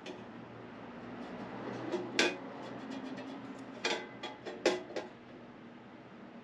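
Steel plate pieces knocking and clanking together as they are handled, five or so sharp metallic knocks with brief ringing, the loudest a little before the end.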